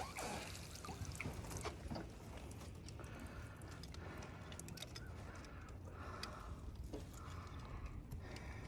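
Faint water trickling and sloshing at the side of a small fishing boat, with scattered small clicks and knocks of gear being handled, over a steady low rumble.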